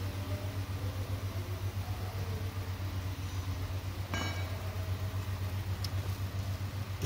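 A machine running with a steady, low, evenly pulsing hum, in the manner of an idling engine. About four seconds in there is a short metallic clink with a brief ring.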